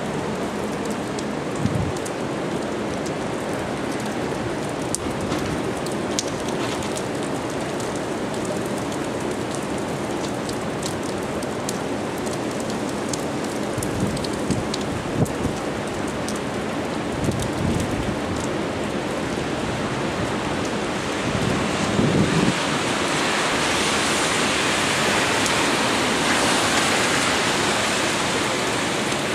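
Hurricane rain and wind: steady heavy rain hitting the street, with scattered sharp drop ticks and occasional low thumps. About twenty-two seconds in it swells louder for several seconds, then eases.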